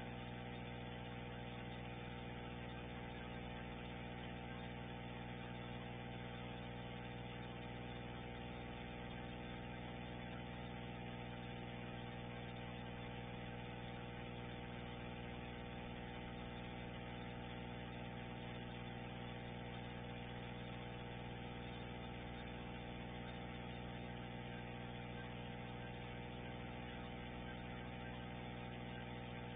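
Steady electrical hum with a stack of even overtones over a constant hiss. It comes from the webcam's audio feed; no sound of the eruption itself is heard.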